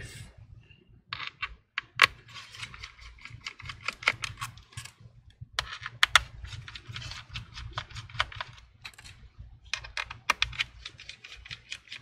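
Small Torx T5 precision screwdriver unscrewing the back-cover screws of an Asus Zenbook laptop: a long run of irregular quick clicks and scratchy ticks as the driver tip works in the screw heads and taps against the case.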